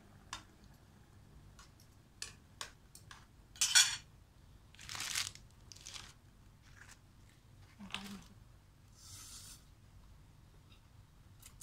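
Eating sounds at close range: scattered clicks of forks and spoons against a stainless steel pot and metal tray, with chewing and slurping of noodles. The loudest is a short, sharp noisy burst about four seconds in.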